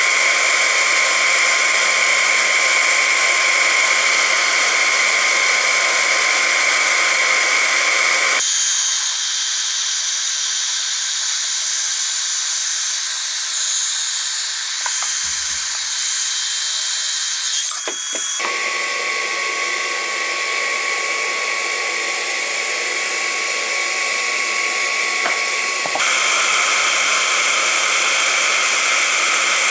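Hot-air plastic welding gun blowing steadily, a loud airy hiss with a faint steady whine, its tone changing abruptly three times.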